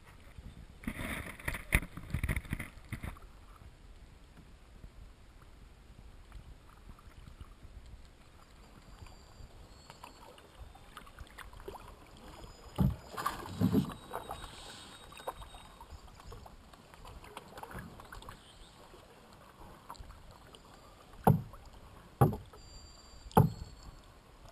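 Canoe paddling on calm flatwater: soft paddle strokes, then three sharp knocks of a paddle against the canoe's hull near the end. Faint bird calls in the quiet between, and a short rustle about two seconds in.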